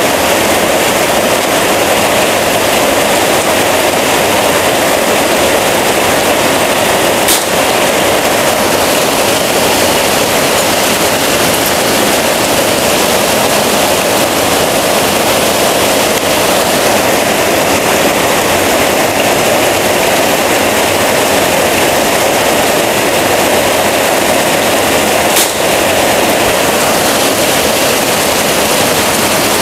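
Heavy rain pouring down steadily, a dense hiss, broken twice by a sharp crack from the FX Crown PCP air rifle firing, about seven seconds in and again some eighteen seconds later.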